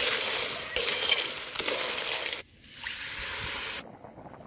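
River snails in their shells clattering and sizzling as they are stirred in a hot metal wok, in several short cuts. About four seconds in this gives way to a quieter bubbling of the snail curry at the boil.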